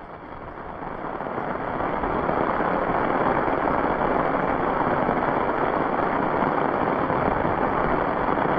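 Heavy rain pouring down, rising over the first two seconds and then steady.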